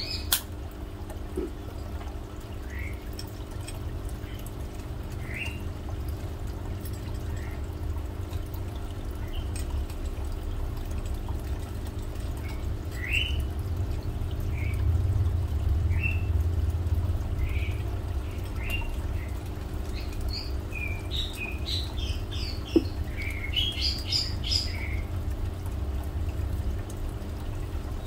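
Small birds chirping on and off in short rising notes, with a quick flurry of chirps near the end. Under them runs a steady low rumble and hum, with a sharp click about two-thirds of the way through.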